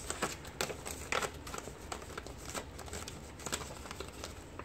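Paper banknotes rustling and crinkling as dollar bills are counted out by hand and slipped into a clear plastic binder pouch, with irregular crisp crackles and a few sharper snaps.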